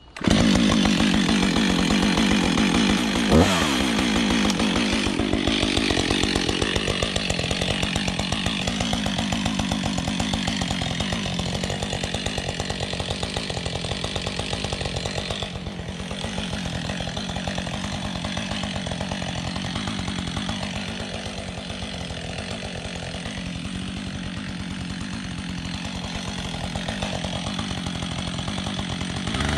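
Husqvarna 555 two-stroke chainsaw starting suddenly and running, with a quick sharp drop in pitch about three seconds in. It settles after about seven seconds into a steady idle that carries on to the end.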